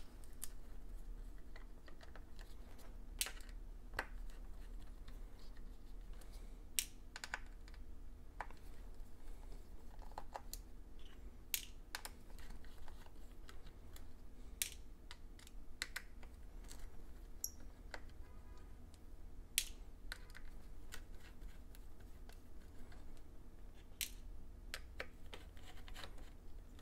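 Scattered light metal clicks and taps as a precision screwdriver takes out the small trackpad screws of a 2019 MacBook Air and the screws are set down in a plastic parts tray. A faint steady hum runs underneath.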